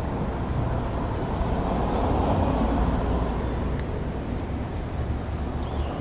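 Steady low rumble of wind buffeting the microphone, with a few faint high chirps of small birds near the end.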